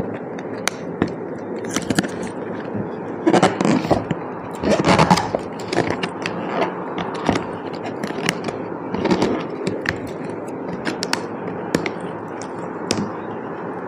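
Cardboard box being opened by hand, with scraping, crackling and small clicks of cardboard and packing tape. There are two louder tearing-rustling stretches about three and a half and five seconds in.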